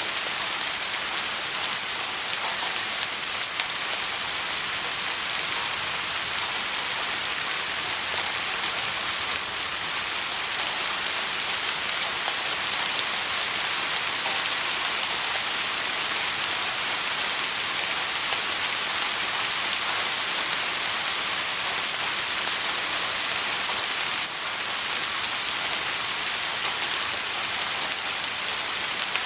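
Steady soft rain: an even hiss of many small drops falling on a surface, with faint scattered drop ticks and no thunder.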